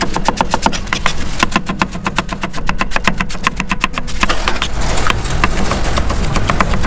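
Kitchen knife chopping onions and cabbage fast on a wooden chopping block, about eight quick strokes a second. About four seconds in, the strokes thin out and a steady rushing noise rises underneath.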